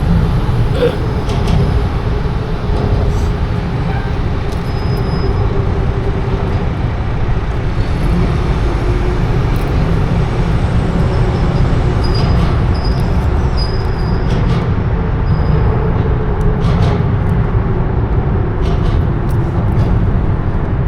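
Steady low rumble of city traffic, with a faint engine drone that wavers in pitch and a few light clicks.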